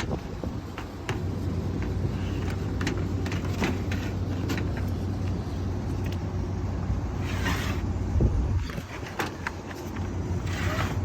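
Filters and sheet-metal access panels of a rooftop HVAC unit being handled: scattered clicks and knocks, with two brief rustling scrapes near the end, over a steady low hum.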